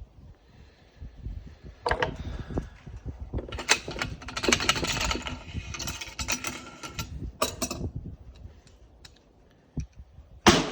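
Metallic clicking and rattling of rifle handling, then a single shot from a PSL rifle near the end, followed by a brief echo.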